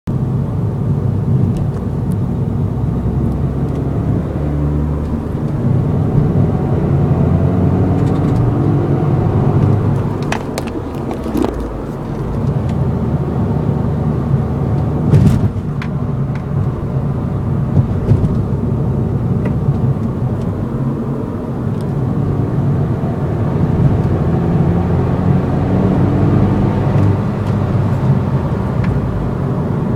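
2008 R56 Mini Cooper S's turbocharged 1.6-litre four-cylinder engine accelerating at full throttle in fourth gear, its pitch rising. Around 3,000 rpm it hiccups: acceleration stops for a second, then resumes while the throttle is still floored.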